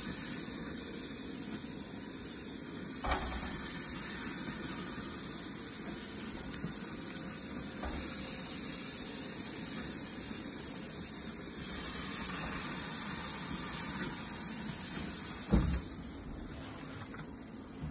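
New York strip steaks searing on a hot propane grill grate: a steady high hiss of sizzling that gets a little louder about three seconds in as more meat goes down. Near the end the grill lid shuts with a thump, and the sizzle becomes much quieter.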